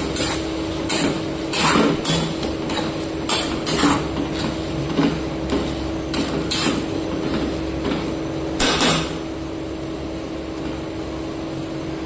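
Spatula scraping and knocking against a metal kadhai in a quick series of strokes while stirring thick frying masala so it does not stick; the strokes stop about nine seconds in, leaving a steady low hum.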